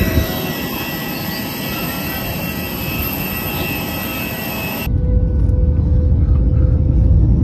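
Jet airliner noise out on the apron: a steady rush with several high, steady whining tones. About five seconds in it cuts sharply to a deep, steady rumble heard inside an airliner cabin.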